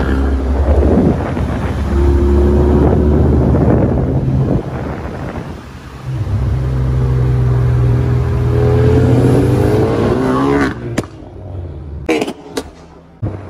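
Ford Focus RS 2.3-litre turbocharged four-cylinder engine and exhaust under hard acceleration in two pulls. The second pull climbs steadily in pitch, then cuts off abruptly near the end, followed by a few sharp cracks.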